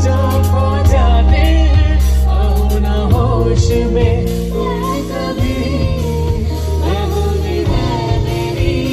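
Live unplugged band playing a Bollywood song: a singer's melody over a steady bass line, guitar and percussion strikes.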